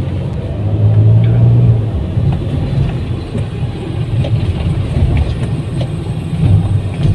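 Car engine and road noise heard from inside the cabin while driving slowly: a steady low rumble that swells briefly about a second in.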